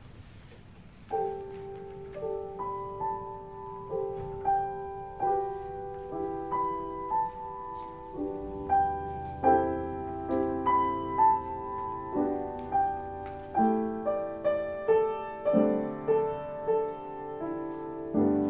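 Piano playing slow music, a melody over chords, coming in about a second in.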